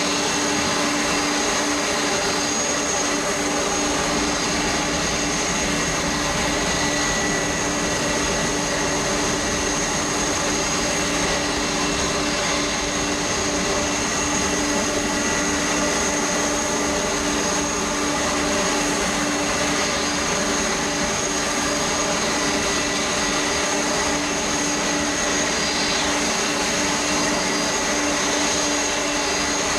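Jet airliner engines running steadily at idle: a constant whine with several fixed tones over a hiss, holding the same level throughout.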